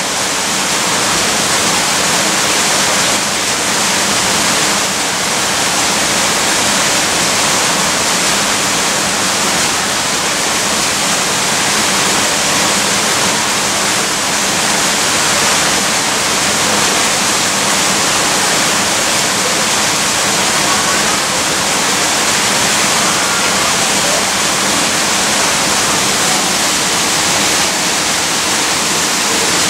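Steady, unbroken rushing of running water, like a small waterfall or water feature.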